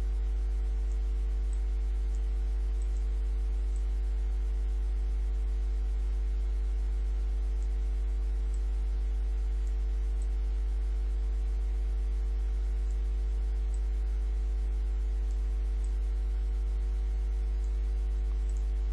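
A steady low electrical hum with several fainter steady tones above it, unchanging throughout.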